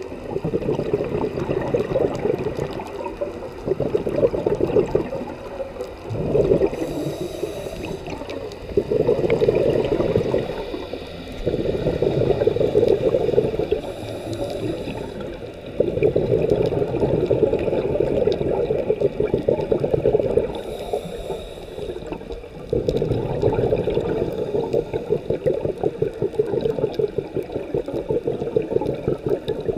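Scuba diver breathing through a regulator underwater: long bubbling exhalations alternating with short hissing inhalations, about one breath every seven seconds.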